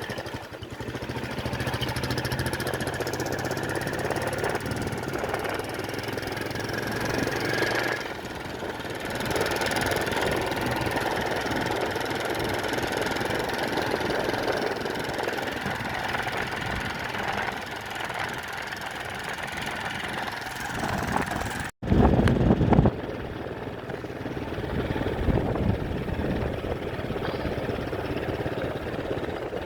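An engine running steadily. About two-thirds of the way in the sound cuts out for a moment, and a loud, brief low rumble follows.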